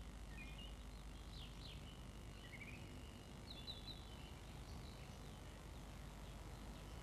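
Faint tape hiss and low hum with scattered faint bird chirps, short high twitters coming and going, including a quick rising run a couple of seconds in and a cluster about halfway through.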